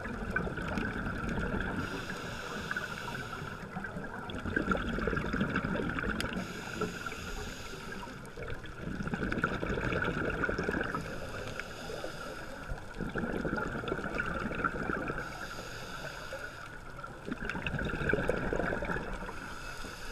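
Scuba diver breathing through a regulator underwater: cycles of hissing and bubbling rumble come back about every four seconds over a steady underwater hiss.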